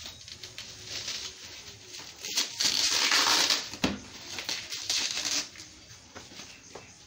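Plastic wrap around a cardboard carton crinkling and rustling as the box is lifted and tipped over, loudest for about three seconds in the middle, with a knock a little before four seconds in.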